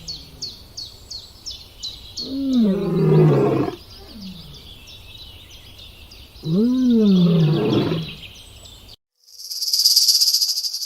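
A large animal giving long roaring calls, two of them, each rising then falling in pitch, over a steady rapid chirping of about three to four chirps a second. About nine seconds in the calls and chirping stop abruptly and a loud hiss follows.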